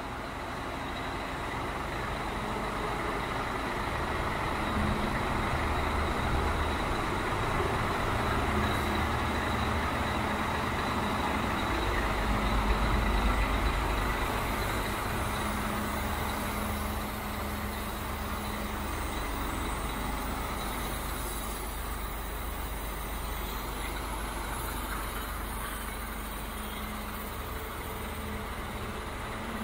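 Scania 114 380 truck's six-cylinder diesel engine idling steadily, with a louder, deeper stretch about twelve seconds in.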